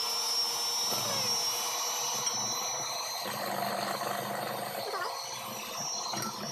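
Small electric kitchen mixer running steadily with a constant high whine, beating pancake-mix batter for corn dogs.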